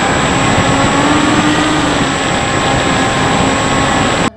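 Bixler 3 RC plane heard from its own onboard camera in flight: the electric motor and pusher propeller whine, their pitch wavering slightly, under heavy wind rush on the microphone. The sound cuts off abruptly at the very end.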